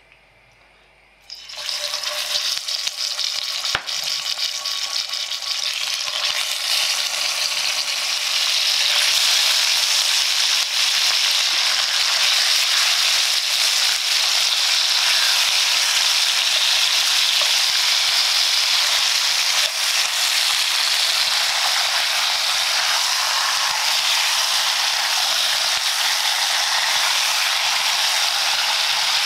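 Seasoned pork ribs sizzling in hot oil in a cast-iron pan. The sizzle starts suddenly about a second and a half in as the first pieces go in, grows louder around eight seconds in as more ribs are laid in with tongs, then holds steady.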